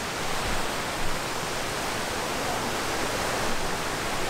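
Many small fountains splashing: a steady, even rush of falling water.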